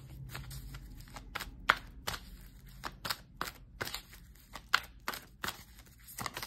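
A deck of oracle cards being shuffled by hand: a run of quick, crisp card flicks and slaps, about three a second, some louder than others.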